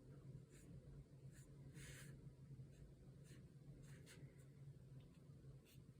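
Faint strokes of a watercolour brush on paper: several short, soft brushing sounds at irregular intervals, over a low steady hum.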